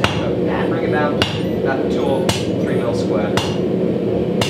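Hand hammer striking a hot steel bar on an anvil, about one blow a second, each blow ringing briefly, over a steady low hum.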